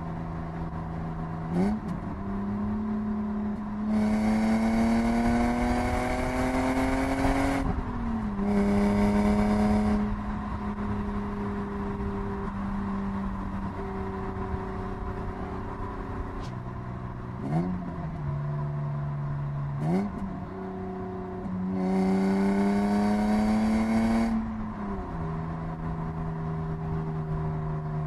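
BMW E36 323i's 2.5-litre inline-six on its stock exhaust, heard from inside the cabin. It pulls hard through the revs twice, with the pitch rising steadily, and drops in pitch at the gear changes. In between it cruises steadily, with a few short throttle blips.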